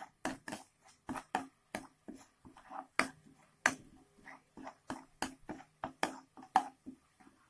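Metal spatula scraping and tapping against a wok while stir-frying a ground spice paste in oil: irregular strokes, about two or three a second.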